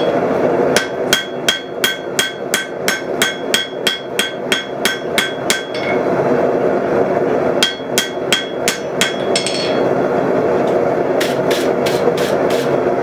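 Hand hammer striking a glowing Damascus billet on a steel anvil, about three blows a second, each with a bright ring: forge-welding shut a delaminated gap in the billet's layers. After a short pause comes a second, shorter run of ringing blows, then duller strikes without the ring near the end, all over a steady background roar.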